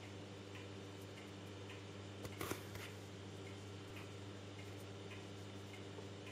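Steady low electrical hum of aquarium equipment, with faint ticks roughly every half second and a short cluster of louder clicks about two and a half seconds in.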